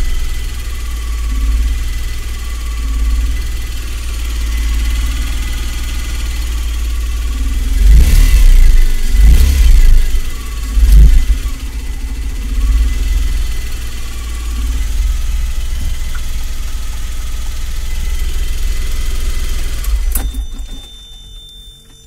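Ashok Leyland Dost CNG engine running steadily, rising in a few short revs about eight to eleven seconds in, then cutting off near the end.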